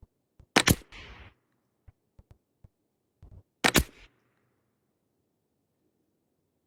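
Two .22 LR rifle shots from a Weatherby XXII, about three seconds apart, each a sharp crack with a short ringing tail, with faint clicks between them.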